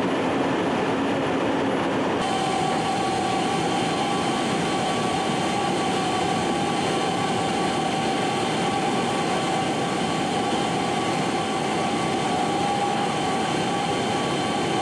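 Steady jet-engine noise of C-17 transport aircraft. About two seconds in, it changes abruptly to the steady engine and air noise heard inside the cargo hold, with a steady high whine over it.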